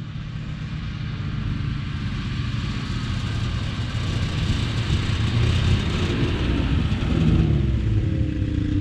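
A small engine running with a steady low rumble, its pitch rising as it revs up near the end.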